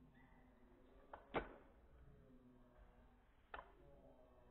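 Near silence broken by a few short, sharp clicks: a faint one followed by a louder one a little after a second in, and another about three and a half seconds in.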